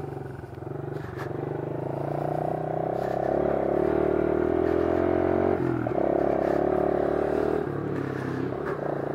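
Honda CRF110 trail bike's small single-cylinder four-stroke engine running under way as it is ridden, the revs rising about two seconds in. The engine note drops briefly about halfway through and eases off near the end before picking up again.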